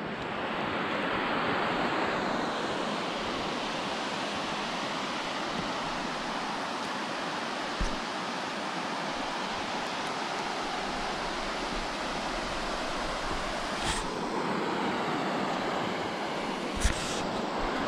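Steady rush of water running down a concrete dam spillway. Three brief knocks stand out over it, the last the loudest.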